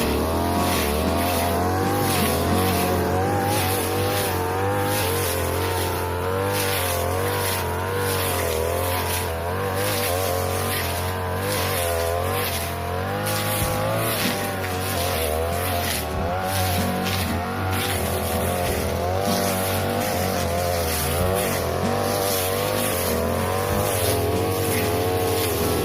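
A 42cc two-stroke brush cutter with a metal blade running at high revs while cutting tall grass, its pitch wavering up and down as the load changes.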